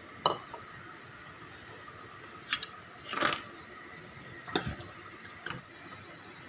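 Metal ladle knocking and scraping against the side of a stainless steel soup pot while stirring, about five separate clinks. The sharpest comes just after the start and a longer scrape a little past halfway.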